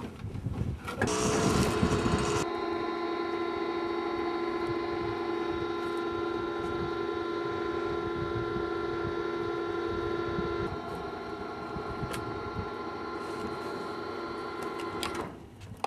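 Crane's motor running steadily as it hoists a heavy old marine diesel engine out of a boat, with a steady machine whine. It opens with a loud rush about a second in, and the lowest tone drops out about two-thirds of the way through. It stops shortly before the end.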